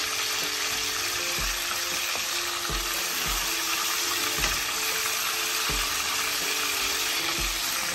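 Silver hake steaks shallow-frying in hot mustard oil in an aluminium karahi: a steady, even sizzle, while a slotted spatula moves and turns the pieces in the pan.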